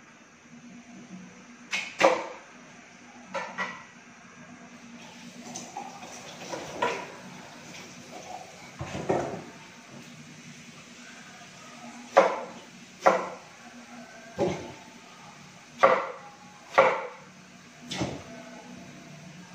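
Kitchen knife chopping sweet potato on a cutting board: about ten sharp knocks at irregular intervals, some harder than others.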